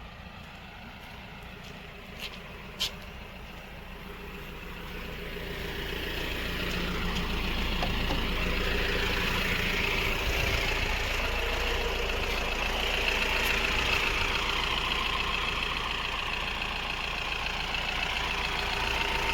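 Mahindra pickup's diesel engine running, growing louder from about four seconds in and then holding steady. Two short sharp clicks in the first three seconds.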